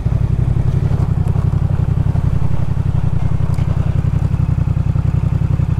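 Yamaha MT motorcycle engine running steadily at low speed, its exhaust pulsing evenly.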